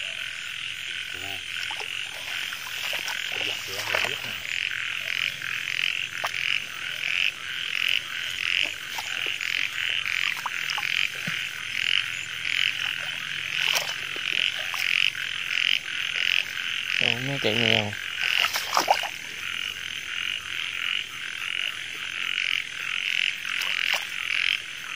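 Dense chorus of frogs calling in a flooded rice field at night: a steady, pulsing high croaking throughout. A few short knocks and splashes come from hands working in the shallow water, and a brief lower wavering call sounds about two-thirds of the way through.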